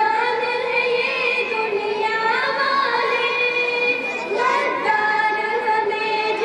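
Girls singing a tarana (an Urdu devotional anthem) together into a microphone, with long held notes that slide from one pitch to the next.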